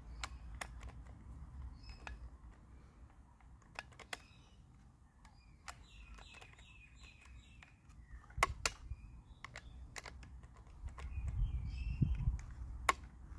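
Scattered light clicks and knocks at uneven intervals, with a few short bird chirps.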